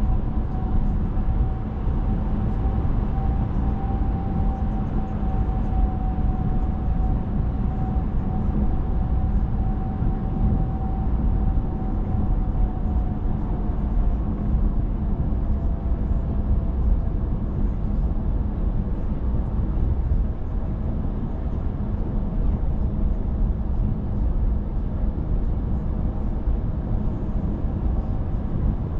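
Steady low road and engine rumble of a car driving. A faint whine drifts slowly lower in pitch over the second half.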